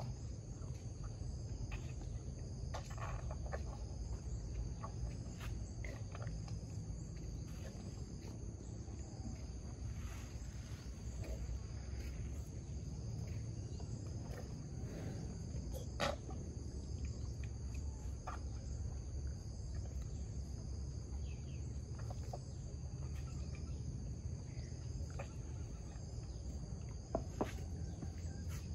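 Insects trilling steadily over a low rumbling background, with a few sharp knocks, the loudest about halfway through and two close together near the end.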